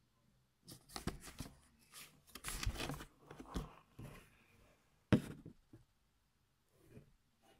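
Bengal kitten's claws scratching and rasping on cardboard: irregular scrapes and rustles, with a sharp click about five seconds in.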